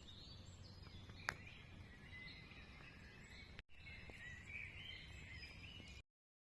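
Faint outdoor ambience: birds singing over a low steady rumble, with one sharp click about a second in. The sound drops out briefly just past halfway and cuts off near the end.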